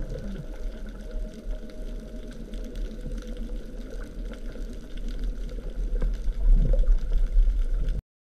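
Underwater sound through a camera housing held just below the surface: a low rumble of moving water with sloshing and gurgling. It cuts off suddenly near the end.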